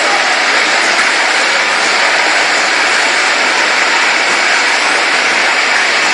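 Automatic 12-nozzle bottle filling and capping line running: a loud, steady mechanical noise with no distinct beat.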